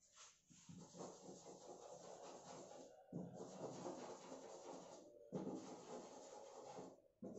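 Chalk scratching and tapping faintly on a blackboard as small dots and circles are drawn, in stretches broken by brief pauses.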